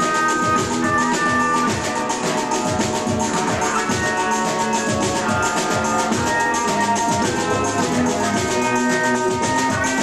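A live band playing instrumental avant-garde rock: a Kurzweil keyboard sounding busy, fast-pulsing melodic lines over drums and other percussion.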